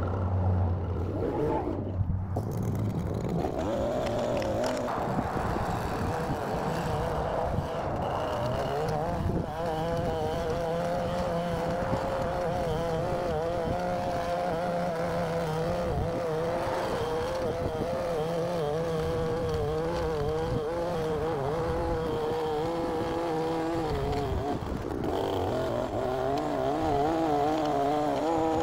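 Small gas engine of a handheld lawn edger running at high speed, its pitch wavering up and down as the blade works along a sidewalk edge.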